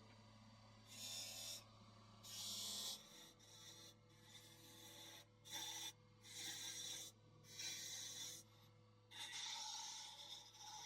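Wood lathe running with a steady low hum while a tool is pressed against the spinning wooden handle blank in repeated passes: about seven or eight hissing, scraping strokes, each up to a second long, as the handle is shaped.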